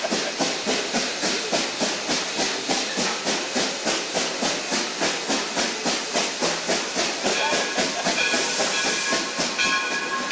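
Steam locomotive working along at a steady beat, about five exhaust chuffs a second with hiss. About seven seconds in, its newly fitted chime whistle starts blowing a long note of several tones at once, the signal for a crossing.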